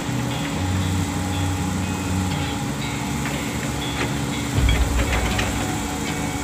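Heavy excavator diesel engine running steadily with a low hum, light clicks and cracks here and there, and a deeper rumble swelling up about four and a half seconds in.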